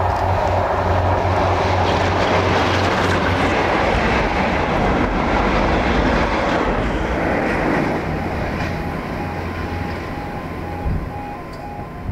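Convoy of heritage diesel locomotives led by Class 52 'Western' D1015, with its twin Maybach diesel engines, passing close at speed. A low steady engine drone in the first few seconds gives way to the rumble of the following locomotives' wheels on the rails, which fades away over the last few seconds.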